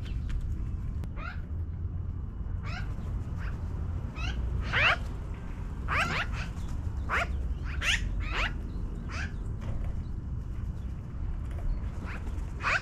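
Magpies calling in a tree: a loose series of short, pitched calls, roughly one a second and loudest in the middle, over a low steady rumble.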